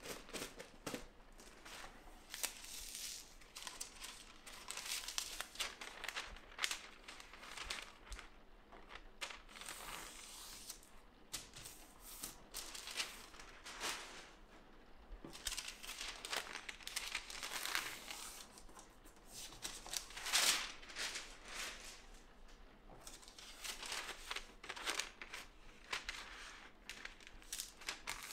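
Large sheets of hybrid transfer paper rustling and crinkling as they are handled, sorted and smoothed flat, in a run of irregular rustles with the loudest nearly three-quarters of the way through.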